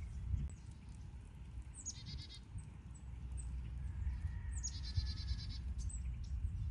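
Small birds calling: two short, fast high trills and several brief high chirps, over a steady low rumble of wind.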